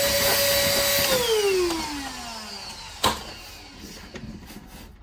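Mitre saw motor running at full speed with a steady whine, switched off about a second in, its pitch falling as the blade spins down. A single sharp knock about three seconds in.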